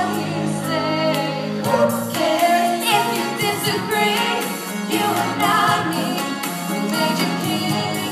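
A song with singing voices over an accompaniment; the bass note changes every second or two.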